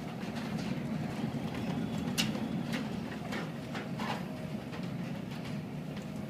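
A steady low drone, like a machine running, with a few faint knocks scattered through it.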